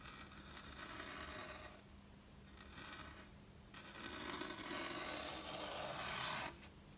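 Edge of a stainless-steel Kizlyar kitchen cleaver slicing through a block of foam, a soft scraping hiss in three strokes, the last the longest and loudest, stopping abruptly. It is a sharpness test of the freshly resharpened edge.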